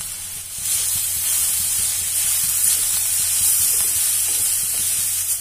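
Shredded cabbage, carrot and capsicum sizzling in a hot oiled kadhai while a spatula stirs the spices through them; the sizzle grows louder about a second in.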